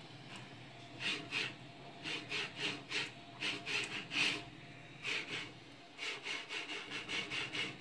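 Anet A8 3D printer's X carriage pushed back and forth by hand along its steel guide rods: quick runs of short sliding, rubbing strokes from the linear bearings, several a second with pauses between runs.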